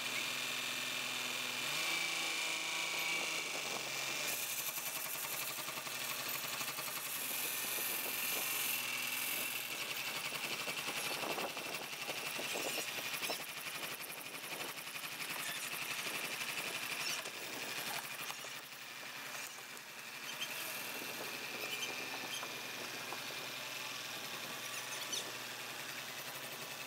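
Specialized low-speed boatyard truck's engine running steadily as it tows a large sailboat on a trailer, rising in pitch about two seconds in.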